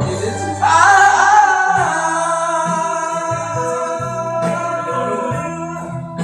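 Closing bars of a Mandarin pop ballad: full band with a bass line, and about a second in a long held note with vibrato rises over it.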